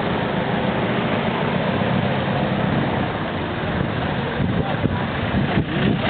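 Steady city street background noise: a continuous low traffic rumble with no distinct events standing out.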